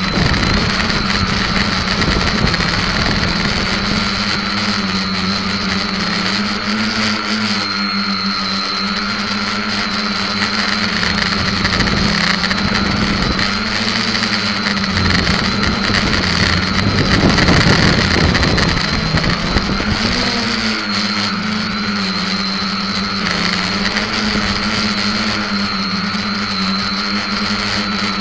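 Electric motors and propellers of an SK450KK2 quadcopter, heard from a keychain camera mounted on its underside, buzzing steadily with the pitch rising and dipping as the throttle changes through turns. The sound gets louder and rougher about two-thirds of the way in.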